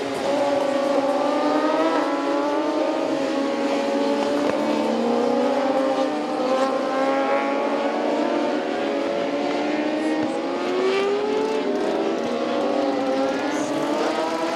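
Several racing sportbike engines at high revs, overlapping, their pitch repeatedly climbing and dropping as the bikes accelerate and shift.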